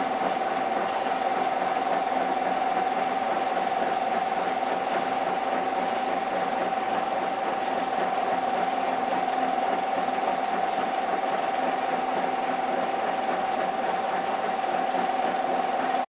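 Monarch heavy-duty engine lathe running free, its spindle and large four-jaw chuck turning with no work in it. The sound is a steady whine with a lower hum beneath it and mechanical rattle, unchanging throughout, and it cuts off abruptly at the end.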